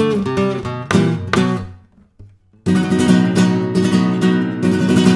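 Background music: strummed acoustic guitar chords in a Spanish style, breaking off for about half a second around two seconds in before the strumming resumes.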